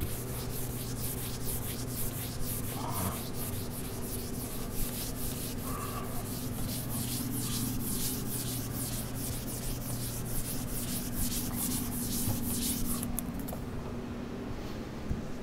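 Whiteboard eraser wiping marker off a whiteboard in quick repeated back-and-forth strokes, stopping near the end.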